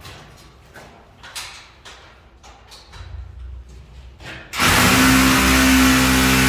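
A few light clicks and knocks, then about four and a half seconds in a loud motor starts abruptly and runs steadily with a strong humming tone and hiss.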